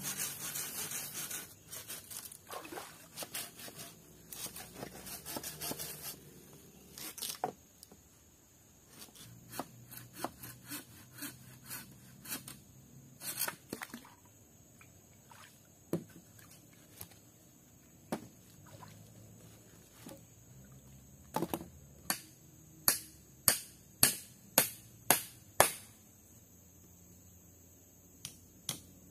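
Hand work with a tool: scraping and rubbing at first, then scattered knocks, and near the end a run of about seven sharp strikes, roughly two a second.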